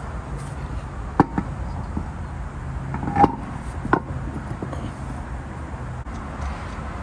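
Alloy wheel being hung onto the hub studs: four sharp knocks and clanks, the loudest, about three seconds in, ringing briefly, over a steady low hum.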